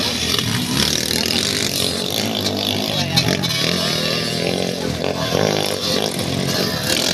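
Several motocross dirt bike engines revving as the bikes ride past on a dirt track. The pitch rises and falls with the throttle.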